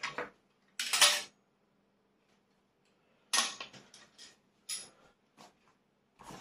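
Objects being handled and put down on a table: about five short clattering knocks, the loudest about a second in, with quiet gaps between them.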